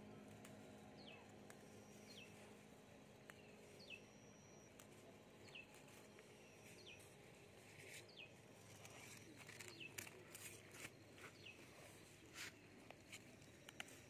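Faint outdoor quiet with a bird repeating a short, high, falling call a little over once a second. In the second half come scattered rustles and snaps from leafy mugwort plants being handled and picked.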